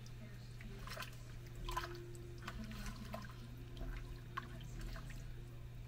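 Broth splashing and dripping into a pan of pot pie filling, a few short strokes about a second apart, over the steady hum of the stove's range-hood vent fan.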